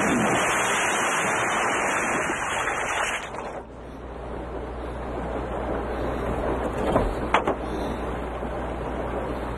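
Water splashing and rushing as a man wades through a river, cutting off about three and a half seconds in to a quieter, steady rush of water with a low hum and a couple of brief knocks near the end.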